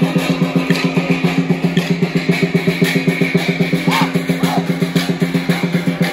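Drum accompaniment for a Chaoshan Yingge dance: a fast, even drumbeat that keeps the dancers' rhythm.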